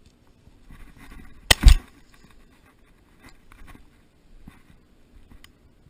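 A single shotgun shot about one and a half seconds in: a sharp, loud blast with a quick second peak and a short low tail.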